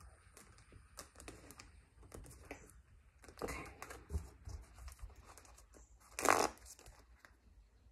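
A deck of tarot cards shuffled by hand: soft, irregular riffling and brushing clicks, with a louder flurry about six seconds in.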